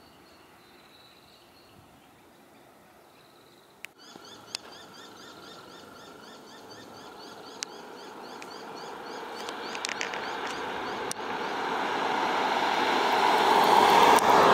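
Twin-engine widebody jet airliner at takeoff power, its engine noise swelling steadily louder as it accelerates down the runway toward the listener. Over it, a bird chirps in rapid, evenly repeated calls, and there are a few sharp clicks. The first few seconds are faint.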